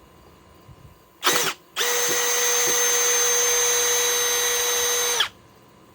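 Cordless M12 drill driver backing a screw out of wood: a short blip of the trigger, then the motor runs at a steady, constant-pitched whine for about three and a half seconds before stopping abruptly.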